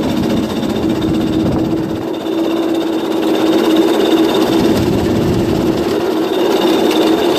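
Go-kart's Tecumseh 6 hp single-cylinder engine running steadily while the kart drives along, its note rising slightly in loudness about two and a half seconds in.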